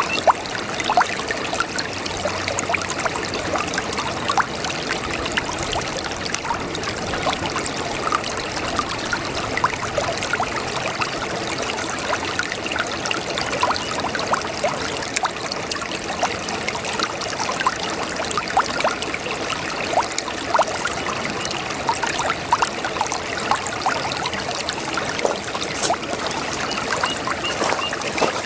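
Brook babbling: shallow running water trickling and splashing over stones, a steady bubbling wash with many small splashes.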